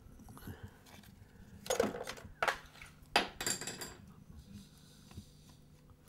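A painting tool scraped across canvas: three short rasping strokes, the last and longest one about three seconds in, with a few faint clicks between them.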